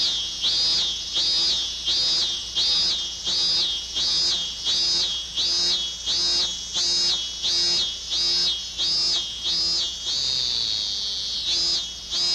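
Cicada singing: a loud, shrill pulsed call repeating about one and a half times a second, each pulse swelling and falling away. Near the end the pulses run together into one longer drawn-out buzz, then the rhythmic pulses start again.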